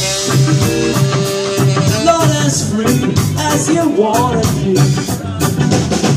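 Ska band playing live in a gap between sung lines: a horn melody of held and bending notes over guitar, bass and drums keeping a steady beat.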